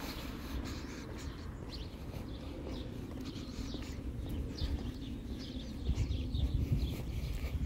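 Small birds chirping in short scattered calls over a low steady rumble.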